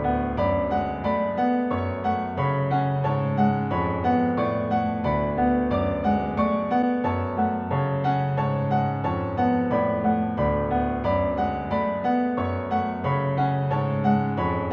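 Background music: a steady stream of piano or electric keyboard notes over a low bass line, with notes struck at an even pulse.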